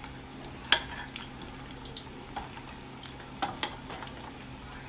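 Plantain pieces frying in a pot of hot oil with a steady sizzle, and a metal spoon clinking sharply against the steel pot four times, loudest about a second in.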